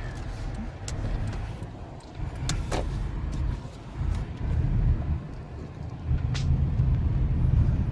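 Car being driven, heard from inside the cabin: a low, uneven rumble of engine and road noise, with a few faint clicks.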